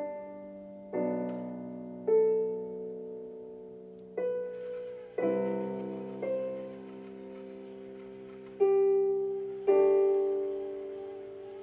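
Background music: slow solo piano, with single notes and chords struck every second or two and left to ring out.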